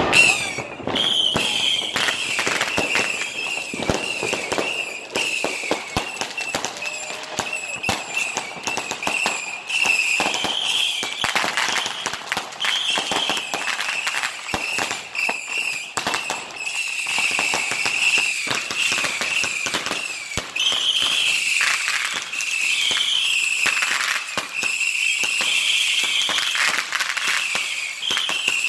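Continuous New Year's Eve fireworks: rapid, irregular bangs and crackling from firecrackers and bursting rockets, layered over a high wavering whistle.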